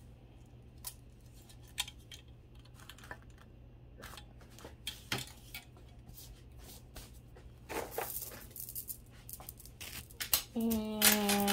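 Scattered light clicks and clinks of costume jewelry being handled: beads and earrings knocking together as pieces are set out and picked up, over a faint steady low hum.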